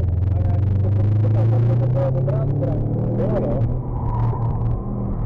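Subaru Legacy Turbo's turbocharged flat-four engine heard from inside the cabin under hard acceleration, its pitch rising for about two seconds, then holding and easing off, with a brief dip in level near four seconds in.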